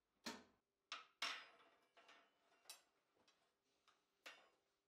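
A string of light metallic clinks and knocks, about seven in under five seconds. The loudest comes about a second and a quarter in and rings briefly. They come from the steel lid and the long wire hook of an electric heat-treating kiln being handled.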